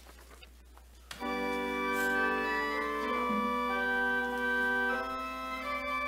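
Church organ starting the prelude about a second in, playing sustained chords whose notes change every second or so.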